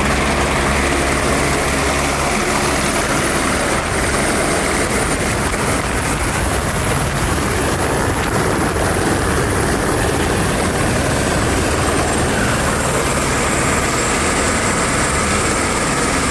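Light turbine helicopter landing close by: a loud, steady rotor and engine noise with a high turbine whine that drops slightly about two-thirds of the way through. The rotor downwash blows across the microphone.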